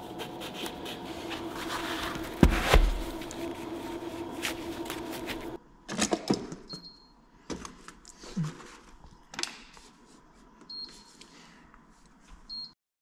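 Rustling and handling noises over a steady hum, with one loud thump about two and a half seconds in. Then the quieter clicks of buttons pressed on a Woodway treadmill console, with short high electronic beeps three times.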